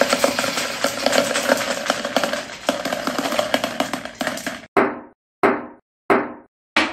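Many marbles rolling and clattering along a HABA wooden marble-run track: a dense rattle of clicks. About four and a half seconds in, the rattle stops and gives way to evenly spaced wooden knocks, about one and a half a second, as wooden track blocks are set down on the table one at a time.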